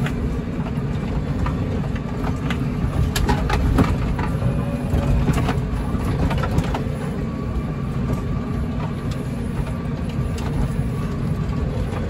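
Tractor running steadily along a dirt farm track, heard from inside the cab as a dense low rumble. Scattered short knocks and rattles come through, mostly between about three and seven seconds in.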